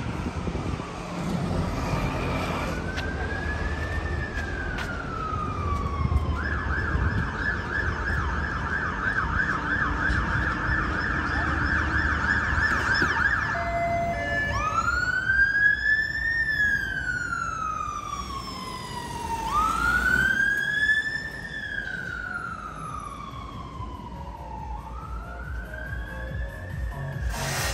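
Emergency vehicle siren in city traffic: a slow rising-and-falling wail that switches to a rapid yelp for about seven seconds, then returns to the slow wail, over the low rumble of road traffic.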